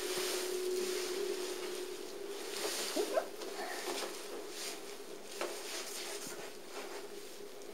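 Soft rustles and pats of a cat batting and pouncing at a feather wand toy on carpet, over a steady hum.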